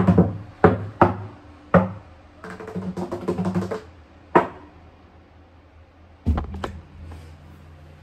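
Small acoustic string instrument strummed by hand: single chords, then a quick run of rapid strums, one more chord, and after a pause a couple of thumps near the end, followed by a low lingering ring.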